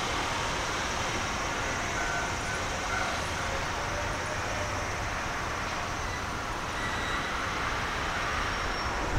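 Steady outdoor background noise: a low, even rumble and hiss of distant traffic with no distinct events.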